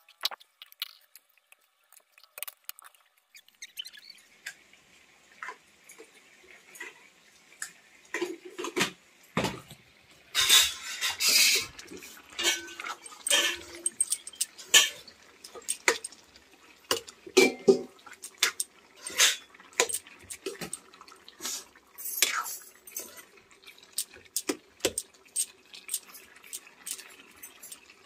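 A metal spatula scraping and clinking against an iron kadai, at irregular moments, while chopped cabbage is stir-fried over a wood fire, with a faint steady sizzle underneath. The first few seconds are quiet; the stirring starts about eight seconds in and is loudest a few seconds after that.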